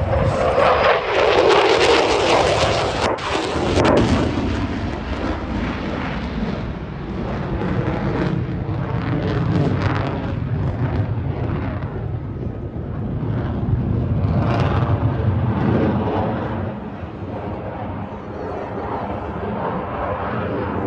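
F-35A Lightning II's F135 afterburning turbofan making loud, crackling jet noise as the jet flies past. Its pitch falls over the first couple of seconds and the level peaks in the first four, then a steady rumbling jet noise goes on and eases off slowly.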